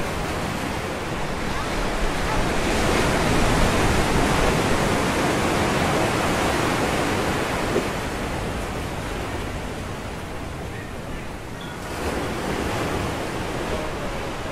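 Ocean surf washing onto a rocky shore: a long rush of water that builds over the first few seconds and slowly ebbs, then a smaller wave surges in near the end.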